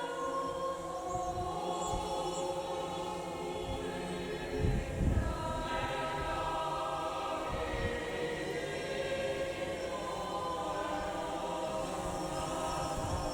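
Background music of sustained choir-like voices, with slowly changing held chords. A brief low thump comes about five seconds in.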